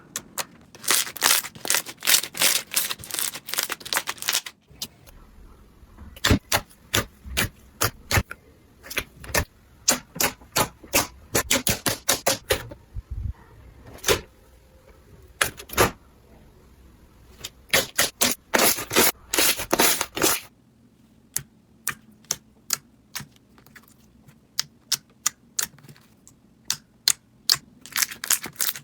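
Slime being squeezed and poked by hand, giving runs of sharp, crisp clicks and pops in quick clusters with short pauses between.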